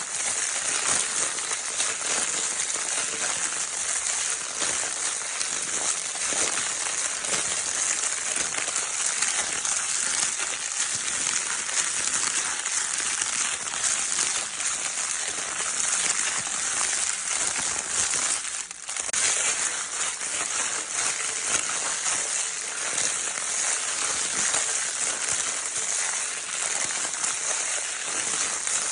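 Baby crinkle paper toy being crinkled continuously, a dense steady crackling rustle that dips briefly about two-thirds of the way through.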